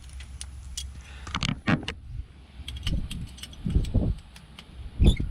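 Small metal lock parts clicking and clinking as a Weiser door lock is handled and taken apart, with several dull low thumps, the loudest near the end.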